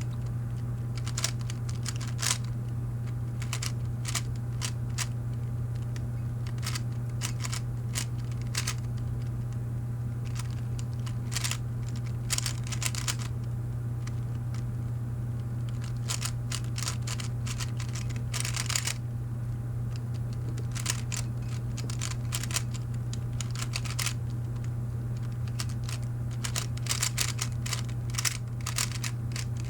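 Rubik's cube being turned by hand in a speed solve: irregular runs of quick plastic clicks as the layers are turned, with short pauses between runs, over a steady low hum.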